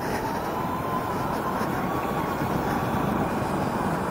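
Electric go-kart driving at speed: a thin electric motor whine that rises in pitch over the first second and then holds steady, over rough wind buffeting on the onboard microphone.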